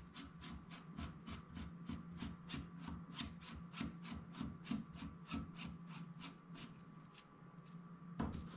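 Metal barrel nut being spun by hand onto the threaded end of an airgun barrel: a quick, faint run of light scraping ticks, about five a second, that stops near the end.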